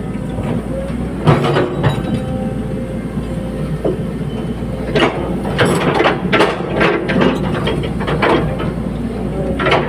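Caterpillar 320D excavator working: its diesel engine running steadily under repeated clanking and rattling of steel, in clusters about a second in, through the middle and near the end.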